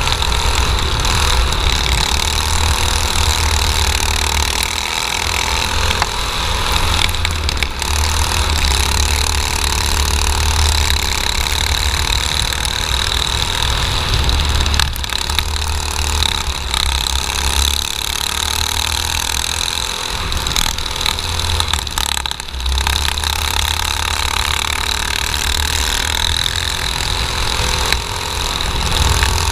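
Junior dirt kart's small single-cylinder engine running flat out at racing speed, heard from onboard over a heavy low rumble of wind on the microphone. The sound holds steady with a few brief dips in loudness.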